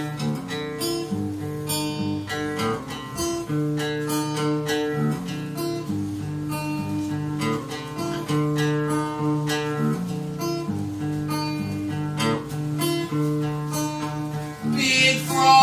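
Acoustic guitar strummed in a steady, repeating pattern as a song's instrumental introduction. A man's singing voice comes in near the end.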